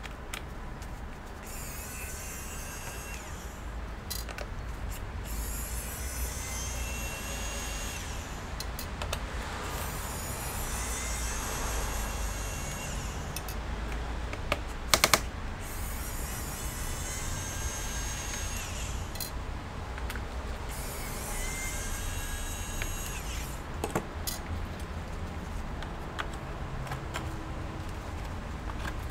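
Small electric screwdriver whirring in repeated runs of a few seconds as it backs out the laptop's bottom-case screws, with a few sharp clicks in between.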